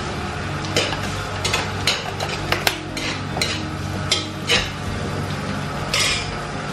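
A metal spoon scraping and clinking irregularly against a large aluminium wok while onions and garlic are stirred in hot oil, over a steady low hum.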